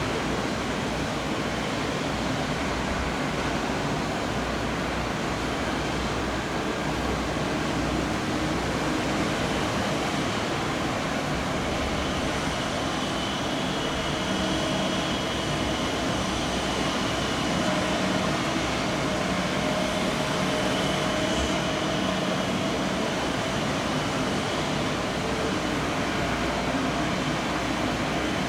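Steady rushing noise with a faint, even hum under it, holding level throughout with no sharp claps or bangs.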